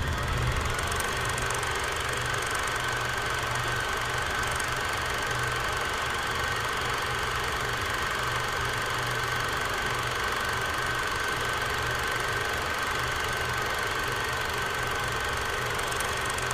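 Bell & Howell 8 mm film projector running: a steady mechanical whir with a constant high whine over a low hum.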